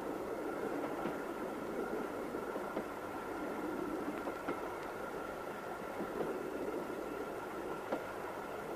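Steady rumble of a railway carriage, with a faint constant whine above it and a few faint ticks.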